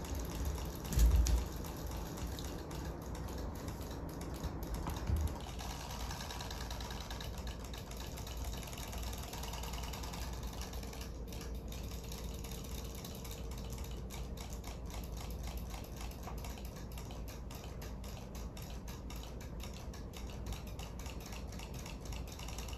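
Small battery-powered robotic fish toys swimming in a plastic basin of water: a steady motor hum with rapid ticking from their flapping tails. A thump about a second in.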